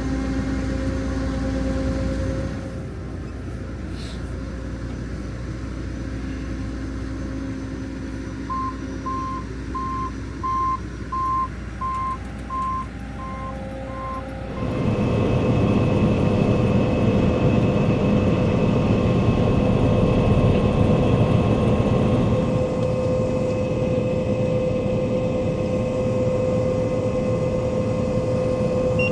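Heavy farm machinery engine running, with a backup alarm beeping about nine times in steady rhythm near the middle. About halfway through a louder machine starts running steadily with a constant whine on top, continuing to the end.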